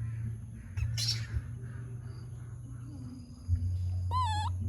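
A brief, high, wavering animal call about four seconds in, over a steady low rumble.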